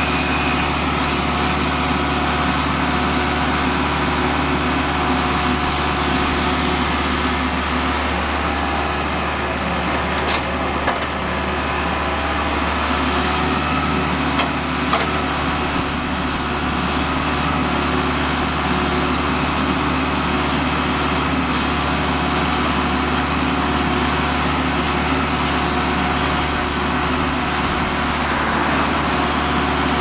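IHI 80VX3 excavator's diesel engine running steadily as it digs, with a few brief knocks partway through.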